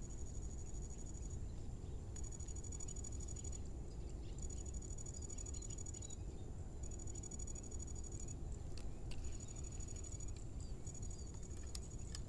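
Insects trilling in a high-pitched, rapidly pulsing song, in phrases of about a second and a half broken by short gaps, over a steady low rumble. A few sharp clicks come in the second half.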